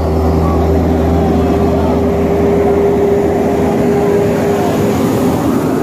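Highway traffic with heavy trucks passing: a steady engine drone over road noise, the deep rumble easing off about halfway through.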